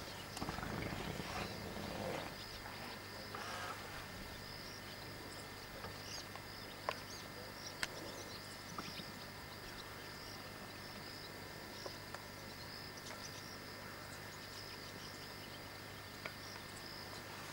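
Steady high-pitched chorus of insects buzzing, with a rustling in the first few seconds and a few faint scattered clicks.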